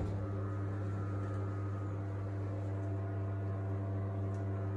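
A Hobart commercial dishwasher hums steadily at idle after its wash cycle, a low electrical hum with a faint hiss over it.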